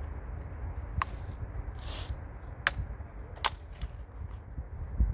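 Scattered small sharp clicks and taps, with a brief scrape-like hiss about two seconds in, from hands handling a car door lock mechanism and its cables, over a steady low rumble.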